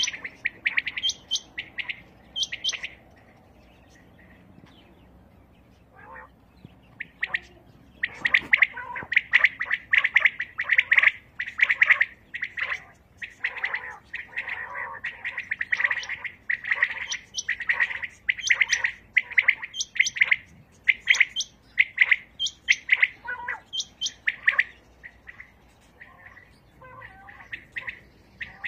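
Caged decoy quails calling for the hunt: many short, sharp calls from several birds, repeated in quick groups. A few calls open, then a lull from about three to eight seconds in, then dense, overlapping calling that thins out near the end.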